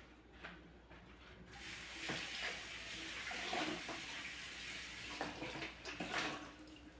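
Kitchen tap running into the sink over a person's hands, turned on about a second and a half in and stopping shortly before the end, with a few light knocks.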